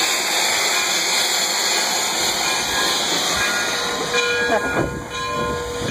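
Frisco 1630, a 2-10-0 steam locomotive, venting steam in a loud, steady hiss from low at its front end. The hiss eases about four seconds in, and a few faint steady tones come through.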